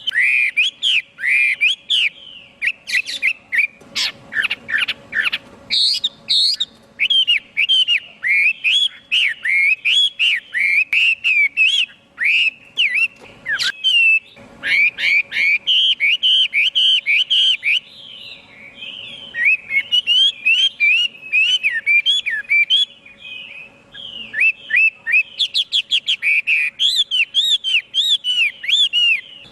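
Chinese hwamei singing a long, fast run of loud whistled notes, many sliding up and down in pitch, with a few brief pauses.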